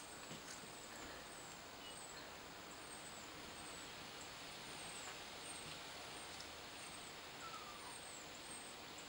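Quiet outdoor ambience: a steady background hiss with a thin, steady high tone, and short, very high falling chirps repeating about once a second. A single faint lower falling call sounds about a second and a half before the end.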